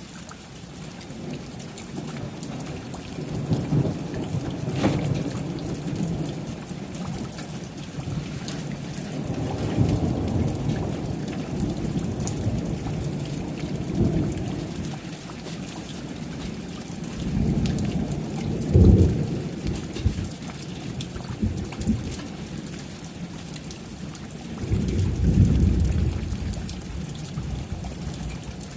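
Thunderstorm: steady rainfall with thunder rumbling in several times, each rumble swelling and dying away over a couple of seconds. The strongest rumble comes about two-thirds of the way through.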